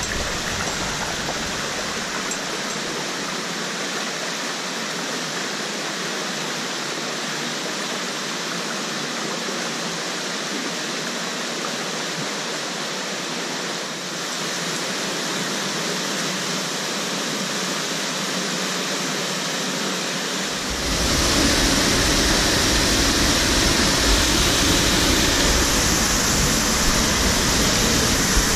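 Steady rush of a mountain torrent and its small waterfalls, an even hiss of falling water. About 21 seconds in it becomes louder and fuller, with a low rumble added.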